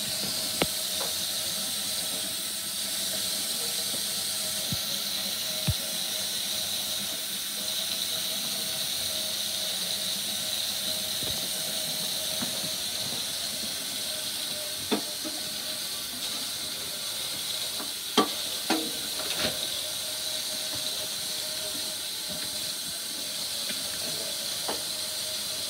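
A dog gnawing on a ham bone: a few sharp clicks and cracks of teeth on bone, several close together about two-thirds of the way through. They sit over a steady background hiss with a faint hum.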